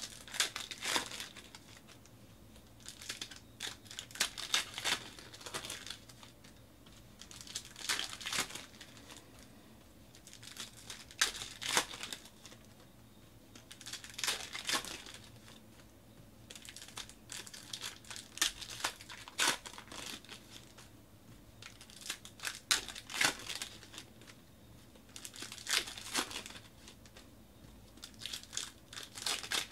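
2019/20 Panini NBA Hoops card packs being torn open, their wrappers crinkling, and the cards handled. The crackling comes in bursts about every three to four seconds.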